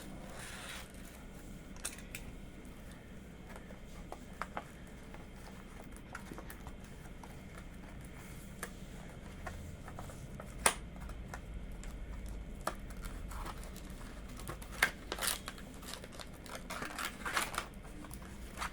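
Handling noise from a packaged knife sharpening stone: scattered clicks and taps, with short bursts of packaging rustling near the start and again near the end, over a low steady hum.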